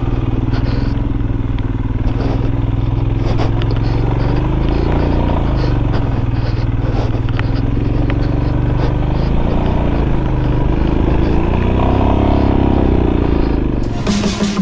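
Motorcycle engine running under way, heard from the bike, its pitch rising and falling several times with the throttle. Music cuts in near the end.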